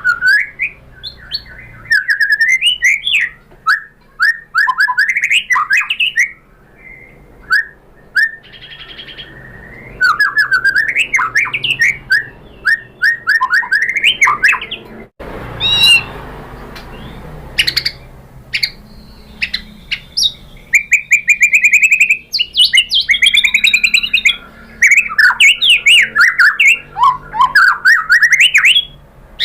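White-rumped shama (murai batu) singing hard: fast runs of loud, varied whistled phrases that slide up and down, with short pauses between bursts and a sudden break about halfway through.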